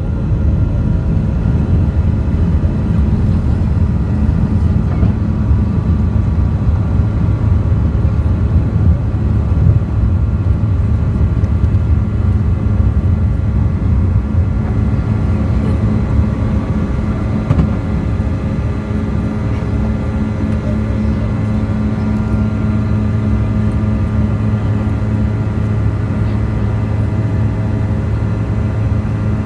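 Cabin noise of a Bombardier CRJ-200 regional jet at takeoff power, its rear-mounted turbofans giving a loud, steady low rumble with a steady whine above it. The rumble is rough while the jet is still on the runway and smooths out about eighteen seconds in as it climbs.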